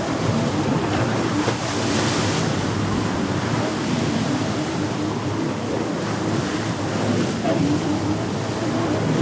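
Jet skis running on the water, a faint engine hum that comes and goes over a steady wash of splashing water and waves.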